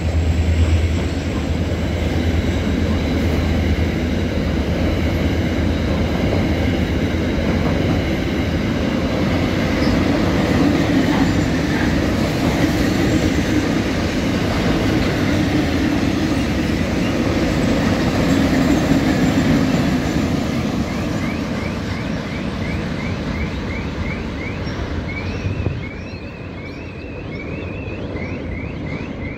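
A train rolling past on the tracks: a long, steady rush of wheel and rail noise with a low hum at the start, which drops off about 26 seconds in.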